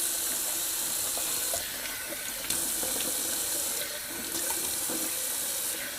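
Bathroom tap running cold water into the sink, with splashing as water is scooped onto the face for a rinse. The steady hiss of the water dips briefly twice.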